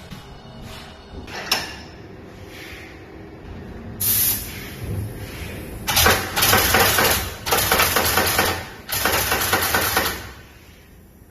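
Ingersoll Rand 285B pneumatic impact wrench running in bursts with rapid hammering and air hiss: a short burst about four seconds in, then three longer bursts of a second or more each.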